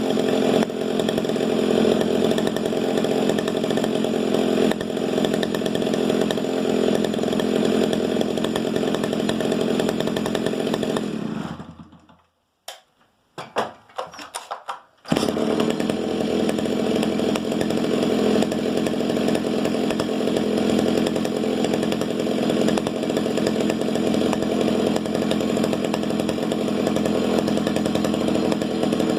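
Stihl 08S 60cc two-stroke chainsaw engine running steadily. About a third of the way in the sound fades out to near silence with a few faint clicks for about three seconds, then comes back suddenly and runs on.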